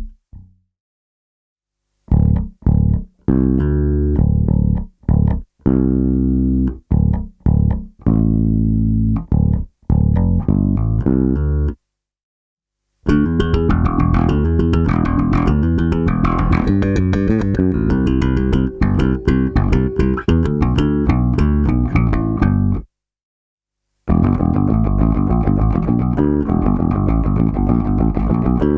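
Warwick Corvette six-string bass with bubinga body and Seymour Duncan Basslines humbuckers, played through its active MEC preamp on both pickups with treble and bass both cut. About two seconds in it plays separate ringing notes and chords, then after a short break fast busy lines, with another short break near the end.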